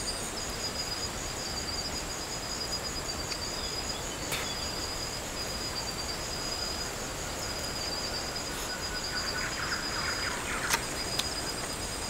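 Steady high-pitched insect trilling, with a brief rustle and a single sharp tick about ten seconds in.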